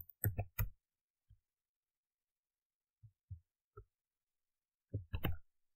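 Computer keyboard keys pressed in short scattered groups: a quick run of clicks, a few dull taps, then another cluster of clicks near the end, with silence between.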